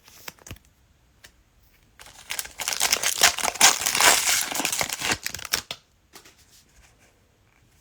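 Trading-card pack wrapper being torn open and crinkled, a dense crackling that lasts about four seconds, with a few soft clicks before it.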